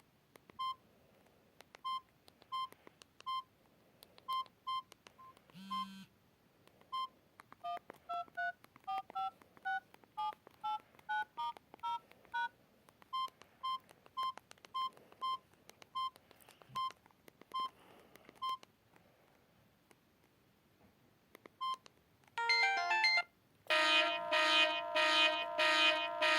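Samsung GT-E1200M mobile phone tones: short single beeps at one pitch, irregularly about every second, then a stretch of beeps at changing pitches in the middle. Near the end comes a short rising run of notes followed by a loud polyphonic ringtone repeating the same chord notes.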